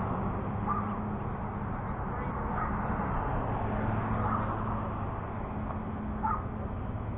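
Steady engine drone of a lawn mower cutting grass, with a bird calling about four times over it.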